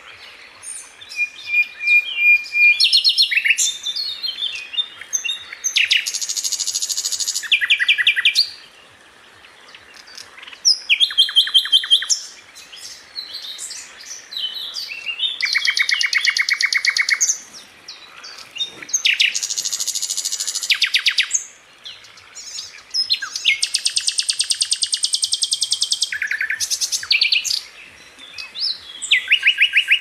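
Common nightingale singing: a string of varied phrases, most of them fast rattling runs of repeated notes and one a held pure whistle, with short pauses between them.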